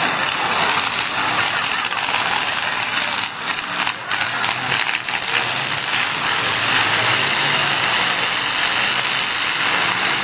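Many demolition derby cars' engines running at once, a loud, steady wash of engine noise.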